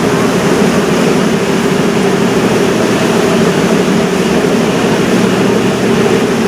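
River cruise boat's engine running steadily, a continuous drone with a constant rushing noise over it.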